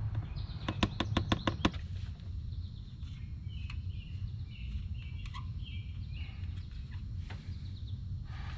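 A rapid run of about seven sharp clicks about a second in, then birds chirping in short calls over a low steady hum.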